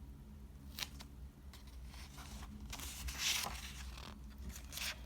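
Faint rustling and handling of paper, a picture-book page being turned, with a short click near the start and a longer rustle a little past the middle, over a steady low hum.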